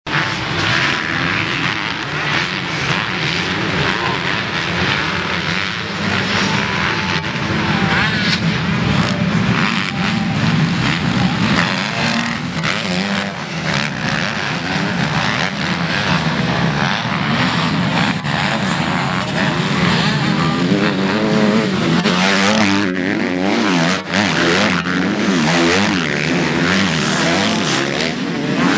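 Motocross dirt bike engines racing around a dirt track, their pitch climbing and dropping repeatedly as riders rev through the corners and jumps. In the last several seconds the revving becomes more pronounced as a pack of bikes comes closer.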